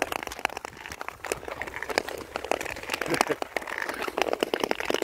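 Long-distance (Nordic) ice skates gliding and scraping over clear black ice, with many irregular sharp clicks and crackles.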